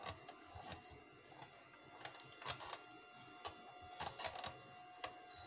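Electric iron pushed back and forth over fabric: faint, irregular swishing and scraping strokes.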